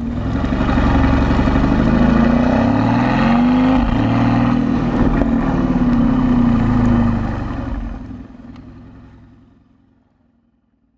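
Mercedes-AMG GT S twin-turbo V8 with an IPE performance exhaust, running hard with its pitch rising and falling. About eight seconds in it fades away to near silence.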